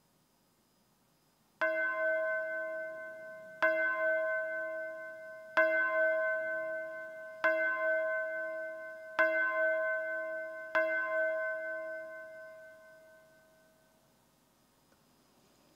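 A bell struck six times at the same pitch, about two seconds apart, each stroke ringing on into the next and the last one dying away over about three seconds.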